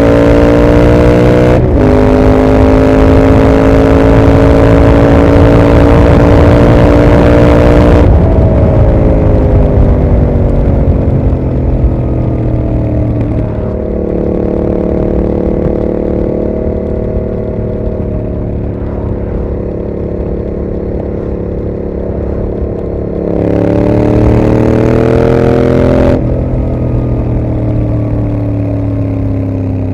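2021 Yamaha MT-07's parallel-twin engine through a Mivv GP exhaust, ridden hard: a quick upshift about a second and a half in, then held at high revs until the note falls away off the throttle. It runs steadier at lower revs, picks up again with a short burst of throttle, and falls off once more near the end.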